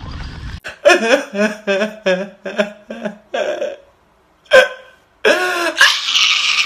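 A man sobbing loudly: a quick run of short catching sobs, then a sharp cry and a long, high wail near the end.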